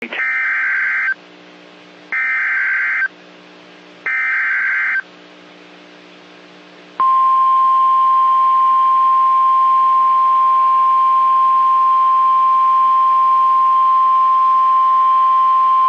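Emergency Alert System header: three one-second bursts of buzzing digital data about two seconds apart, then, from about seven seconds in, the long steady single-tone warning alarm, announcing a severe thunderstorm warning.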